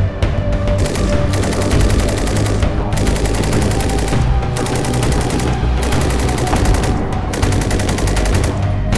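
Sarsılmaz SAR 762 MT 7.62 mm general-purpose machine gun firing several long fully automatic bursts with short pauses between them, over background music.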